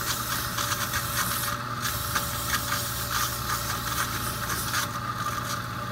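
Lathe motor running steadily while 400-grit sandpaper is held against the spinning leather cue tip and ferrule: an even sanding hiss over the motor's hum.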